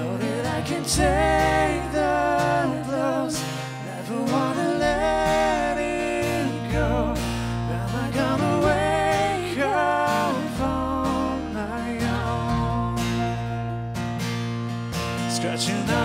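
Live band music: a strummed acoustic guitar with a slow, wavering melody line on top, over deep sustained low notes that change every two seconds or so.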